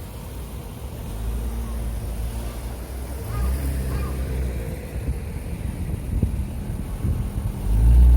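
Road traffic passing at a street junction: a low rumble that swells several times, loudest near the end.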